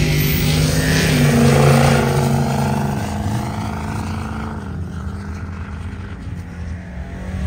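Mud bog race truck's engine running at high revs on its pass down the track, the pitch wavering as it pulls through the mud, then fading and dropping in pitch from about three seconds in as the truck pulls away.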